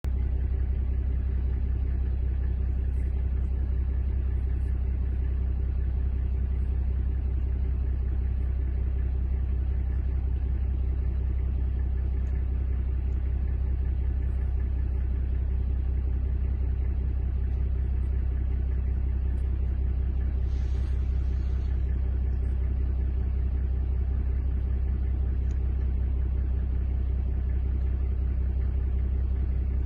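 Steady low mechanical rumble with a constant hum, unchanging throughout, with a brief faint hiss about twenty seconds in.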